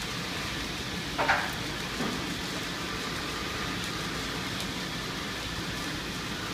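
Hanna-Sherman car wash tunnel running: its spinning foam wraparound brushes and water make a steady wash of noise. A brief, sharper and louder sound comes about a second in.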